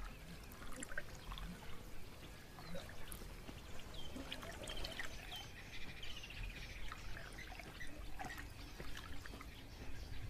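Water birds calling in short chirps, with a quick run of notes a few seconds in, over soft trickling and splashing water.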